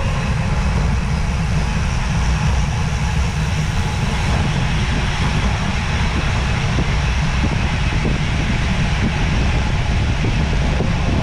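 Steady wind rush and low rumble on the microphone of a road bike riding at speed.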